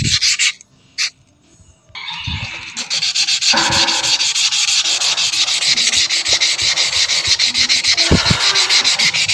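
Agate gemstone glued to a stick, rubbed by hand back and forth on wet coarse sandpaper: a rhythmic gritty scratching as the coarse grit grinds out the stone's scratches. The rubbing stops about half a second in, with a single tap around one second, and starts again about two seconds in.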